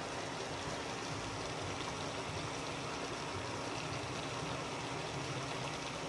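A pot of pinakbet, a vegetable and pork stew, simmering on a stove: a steady bubbling hiss.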